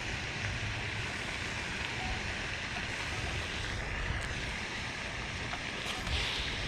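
Wind buffeting the microphone, a steady low rumble over an outdoor hiss, with a faint brief chirp about four seconds in.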